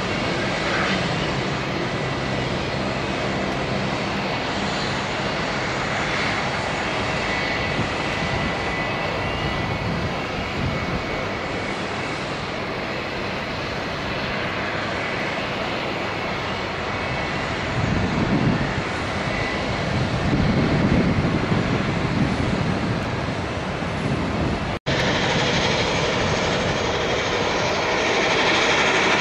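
Jet airliner engines running: a steady high whine over a broad rushing noise. Heavier rumbles swell twice past the middle, and the sound cuts out for an instant near the end.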